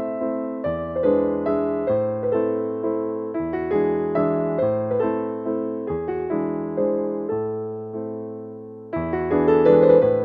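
Background piano music: struck notes and chords that ring and fade, a new chord about every two to three seconds.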